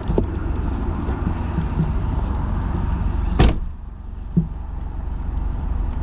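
A Ford Fiesta car door shuts with a sharp slam about three and a half seconds in, and a lighter knock follows a second later. Steady background noise comes in before the slam and drops once the door is closed.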